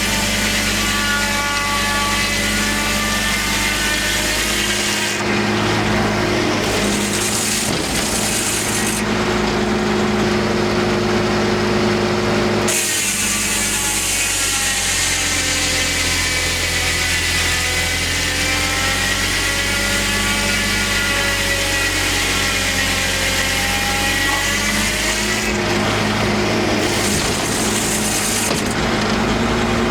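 Homemade circular sawmill with a 52-inch blade sawing a big white pine log, over the steady drone of the engine driving it. The blade's whine sags in pitch as it loads up in the cut and then recovers, in two cuts: one ending about five seconds in, the other running from about thirteen to twenty-five seconds.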